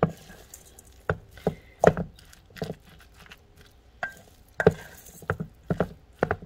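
A spoon stirring and pressing a thick rice-and-bean mixture in a stainless steel bowl, knocking and scraping against the bowl at an irregular pace.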